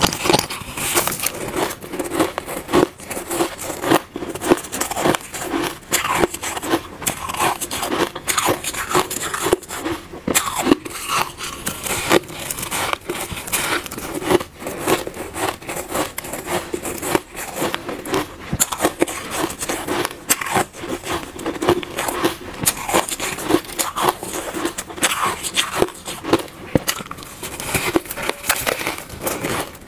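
Soft, powdery shaved ice being bitten and chewed in mouthfuls: a dense, continuous run of small crunches, close up.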